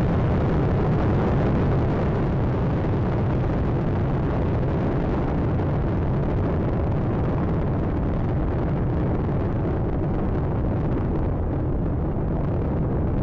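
Space Shuttle Atlantis's solid rocket boosters and three main engines during ascent: a loud, steady, deep rumbling noise, its upper part thinning slightly near the end.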